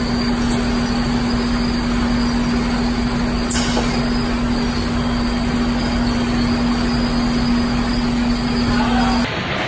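Pin-type bread depanner on a bakery production line running: a steady mechanical hum with one constant low tone over a wash of machine noise. There is a brief sharp sound about three and a half seconds in, and everything cuts off just before the end.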